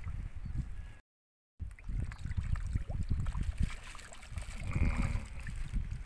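Wind buffeting the microphone outdoors, an uneven low rumble in gusts, with the audio dropping out to silence for about half a second about a second in.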